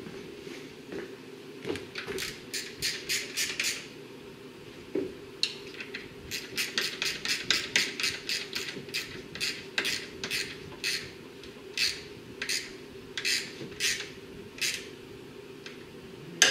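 Ratchet wrench clicking in short, quick strokes as the A/C condenser's mounting bolts are run in against the radiator, in two runs with a pause between them, over a steady low hum.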